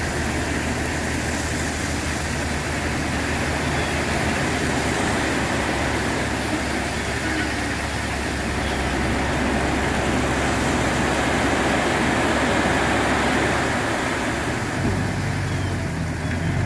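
Crushed limestone gravel sliding and pouring out of the raised body of a Peterbilt tri-axle dump truck, a steady rushing hiss over the diesel engine's low running note. Near the end the engine note grows stronger.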